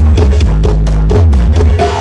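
Loud dance music with a heavy, booming bass line and a steady drum beat, played through a large carnival sound system (a 'horeg' rig).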